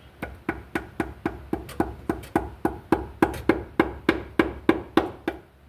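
Rapid hammer taps, about four a second, each with a short ring, working a tool into the seam of a stuck oil pan to break its sealant loose. The tapping stops just before the end.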